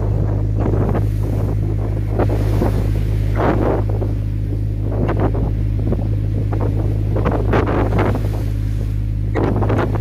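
A boat's engine runs with a steady low hum while wind gusts buffet the microphone and waves wash against the hull in rough seas.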